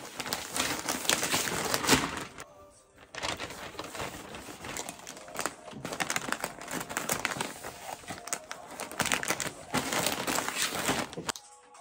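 Plastic mailer bag crinkling and rustling while clothing is slid into it and the bag is folded shut and pressed flat, with a short pause about two and a half seconds in.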